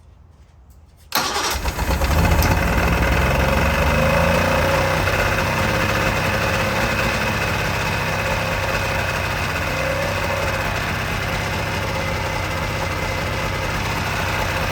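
Three-cylinder outboard motor, its lower unit sitting in a barrel of water, fires up suddenly about a second in after its fuel line is primed, then keeps running steadily at idle.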